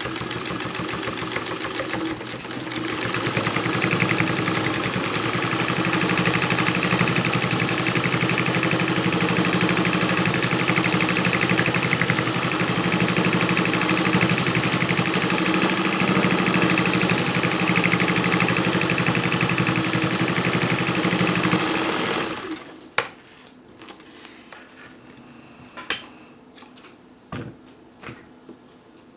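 Vintage Atlas sewing machine running, stitching through a double layer of denim jean pocket; it speeds up and grows louder about three seconds in, runs steadily, then stops suddenly well before the end. After it stops there are only a few light clicks.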